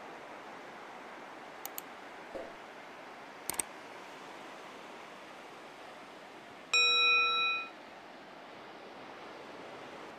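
Subscribe-animation sound effects: a few short taps and clicks, then a single notification-bell ding about seven seconds in that rings for just under a second, over a steady faint hiss.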